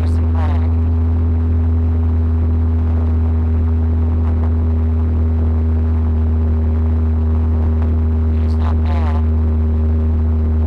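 Steady low drone of a Ford 351 Windsor V8, running at an even speed with no revving.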